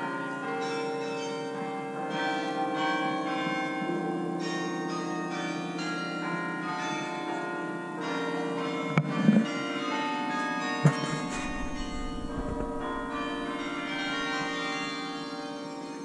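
Bok Tower's carillon playing music, its bronze bells struck one after another, their tones ringing on and overlapping. Two brief sharp bumps come about nine and eleven seconds in.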